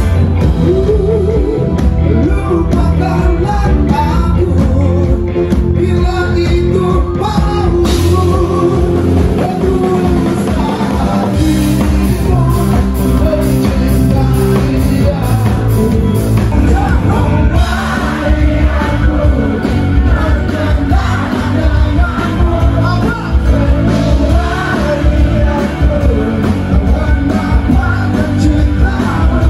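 Live rock band playing loud through a concert PA, with a male lead singer's voice carrying the melody.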